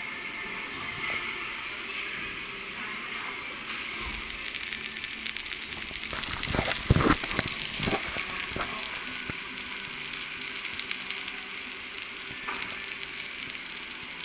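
Pork shank in barbecue sauce sizzling on a hot iron serving platter: a spattering, crackling hiss that grows louder about four seconds in. A few louder knocks come around the middle.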